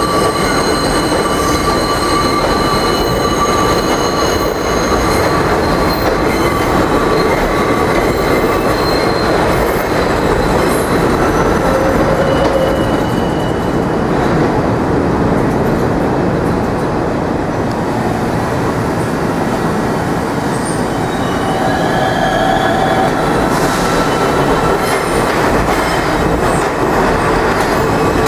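New York City subway train running on elevated track, with a steady rumble of the cars and steel wheels squealing in several high pitches on a sharp curve. The squeal is strongest in the first third, fades, and comes back briefly twice later.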